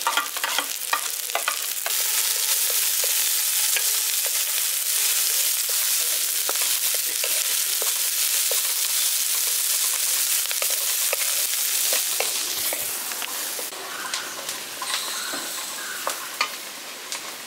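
Chopped vegetables (carrots, beans, capsicum and onion) sizzling in hot oil in a kadai, stirred with a wooden spatula that clicks and scrapes against the pan. The sizzle swells about two seconds in and dies down over the last few seconds.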